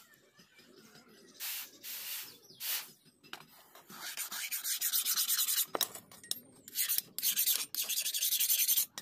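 A hand tool rasping against a steel cleaver blade. It starts with a few short strokes, then from about four seconds in a series of longer, louder scraping strokes.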